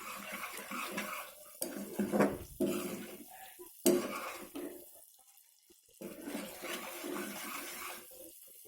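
Sugar syrup boiling and bubbling in a pan, still thinning out before it reaches the right consistency, with a couple of sharp clinks against the pan. The bubbling drops away for about a second midway.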